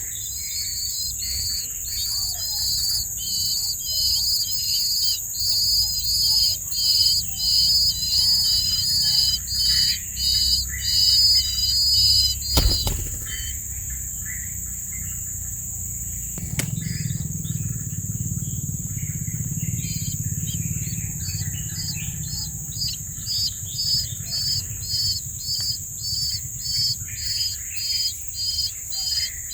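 Steady high insect drone under a chirp repeated about twice a second, the chirping pausing for a few seconds in the middle. A sharp knock at the start of that pause and another at its end.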